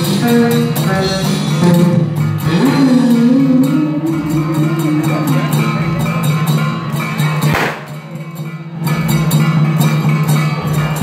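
Music with a melody line over a steady drone and percussion. A sharp crack comes about seven and a half seconds in.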